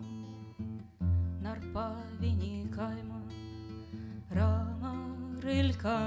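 A woman singing a slow song over a strummed acoustic guitar. The voice comes back in with a strong strum about a second in, and further strums mark the phrases.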